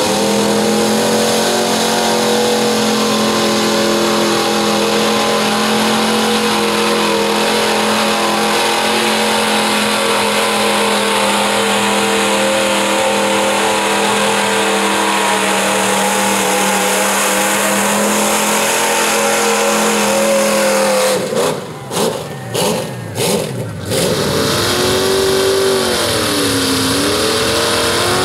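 Mud bog pickup truck's engine held at high, steady revs as it runs through the mud pit. About three-quarters of the way through, the sound cuts in and out sharply a few times. Then another mud bog vehicle's engine revs down and back up.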